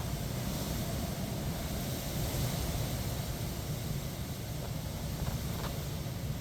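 Strong wind ahead of a storm, a steady rushing hiss with a low rumble of wind buffeting the microphone.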